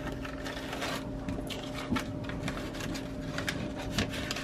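Small plastic bag crinkling and strands of glass beads clicking as they are packed back into it: scattered small rustles and ticks over a steady low hum.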